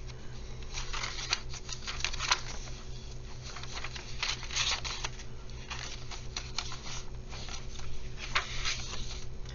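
Paper pages of a handmade junk journal being turned and handled: crisp, irregular rustles and flaps of paper, in flurries about a second in, around four to five seconds, and near eight seconds.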